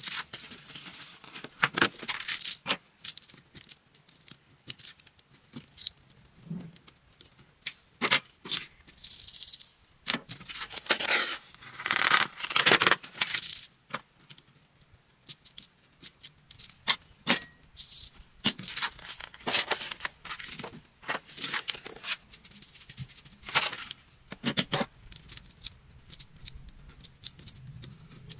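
Coloured sand and glitter being poured onto a sticky sand-art sheet and shaken and tapped off the paper, in repeated hissing, rattling bursts with small taps, the longest about halfway through.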